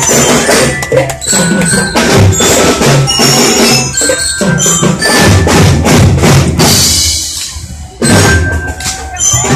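Children's drum band playing: bass drums and other drums beat out the rhythm under a melody on glockenspiel-type mallet bells. The playing thins out about seven seconds in, then comes back in with a sudden loud stroke.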